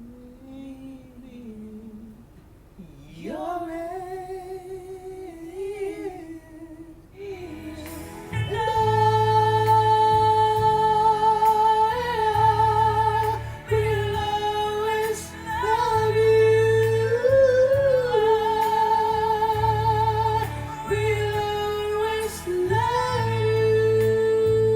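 A voice singing long high notes with wide vibrato. It is soft and unaccompanied at first, then from about eight seconds in it is joined by loud backing music with a pulsing bass.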